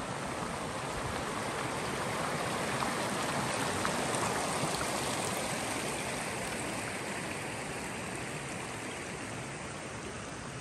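Steady rush of water, swelling a little toward the middle and easing off near the end.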